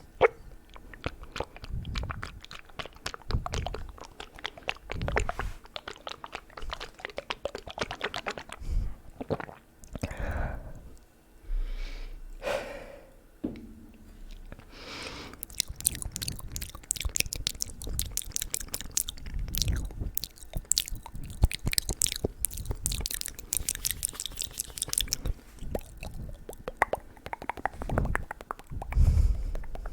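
Close-miked ASMR mouth sounds on a bare microphone: wet clicks, smacks and tongue pops from a mouth freshly wetted with a sip of water, with a dense run of rapid clicks about halfway through.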